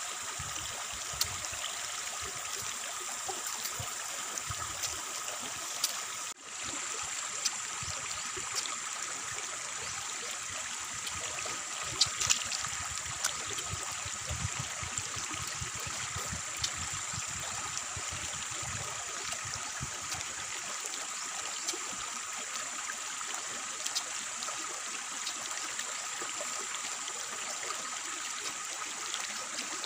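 A person eating fresh fruit by hand, with small clicks and mouth sounds of biting and chewing over a steady, rushing outdoor hiss that carries two constant high tones.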